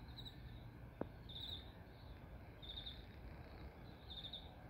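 Crickets chirping at night: short pulsed chirps repeating about once a second over a faint low rumble, with a single click about a second in.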